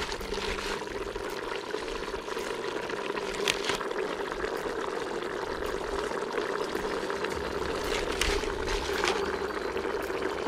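Pork curry simmering in a large aluminium pot, a steady bubbling hiss with a few sharp crackles.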